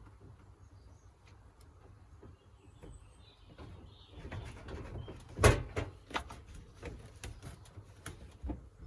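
Handling knocks and clicks from working on a washing machine being pulled out and taken apart, with one loud thump about five and a half seconds in.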